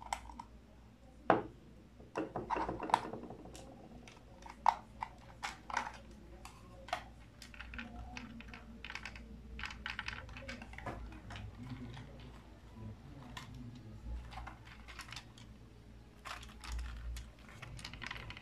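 Scattered sharp plastic clicks and light knocks as the HUINA 1592 excavator's toy remote control is handled, its battery compartment opened and loaded until it switches on. A louder knock comes just over a second in, then a quick run of clicks.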